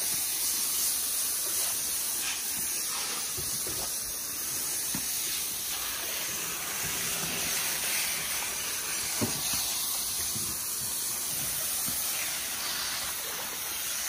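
Steady hiss of water spraying onto freshly laid exposed-aggregate concrete, washing the surface cement and sand off to bare the stones. A small knock about nine seconds in.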